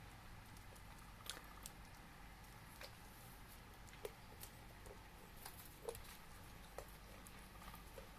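A dog chewing on sticks: faint, irregular cracks and crunches every second or so, over a low steady hum.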